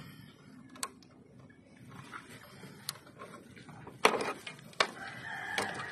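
A few sharp clicks and knocks as a rubber fuel hose is worked off its fitting by hand next to clamped locking pliers, the loudest about four seconds in. Chickens sound in the background, and a rooster starts crowing near the end.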